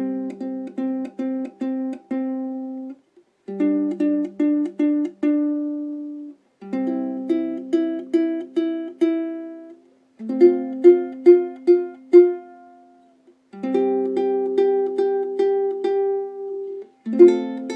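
Ukulele played solo, plucking the melody of a simple children's tune with lower harmony notes sounding under it. It goes in six short phrases of repeated plucked notes, each followed by a brief pause.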